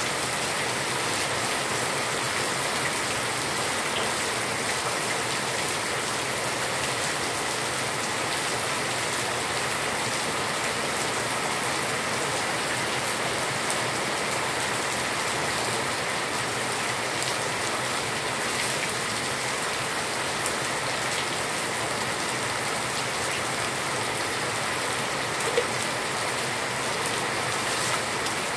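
Steady rain falling on a concrete yard, the even hiss and patter of a downpour.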